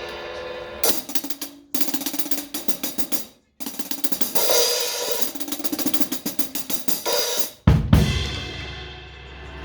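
Music with a fast drum pattern: rapid hi-hat and cymbal ticks over sustained tones, broken by sudden short drop-outs, then a heavy low boom near the end that rings out and fades.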